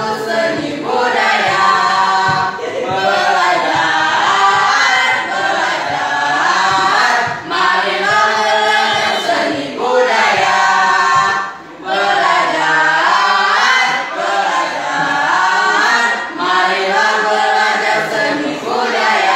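A small mixed group of teenage boys and girls singing an Indonesian song together without instruments, phrase after phrase, with a short breath-pause about twelve seconds in.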